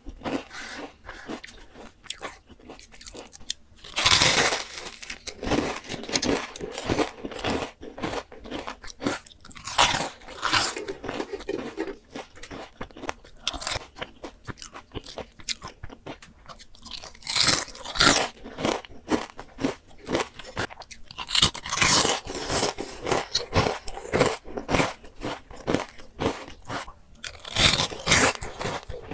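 Close-miked eating of crispy deep-fried chicken: loud crisp crunching bites every few seconds, with chewing of the crackly coating in between.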